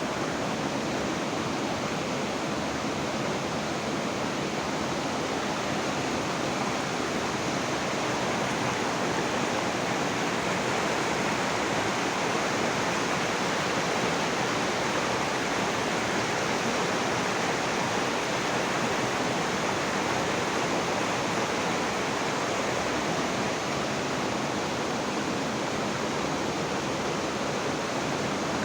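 Steady rushing water, an unbroken even wash of noise at a constant level.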